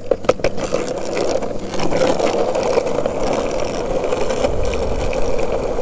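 Skateboard wheels rolling over pavement, a steady roar, with a few sharp clicks near the start.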